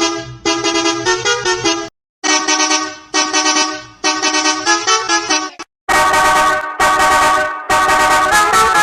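Multi-note musical bus horn playing a short tune, repeated as several edited variations: about five phrases of a second or so each, split by short silent gaps, the last three in a brighter tone.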